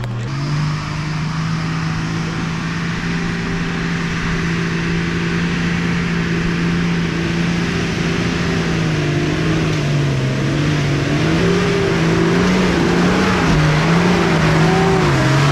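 Nissan Patrol GU 4WD's engine under load climbing a steep dirt hill, held at steady revs at first. Over the last several seconds the revs rise and fall repeatedly, and the sound grows louder as the vehicle comes up the slope.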